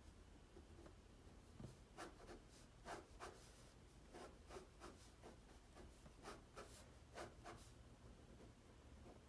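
Faint scratching of a BIC ballpoint pen drawing quick, irregular strokes on sketchbook paper.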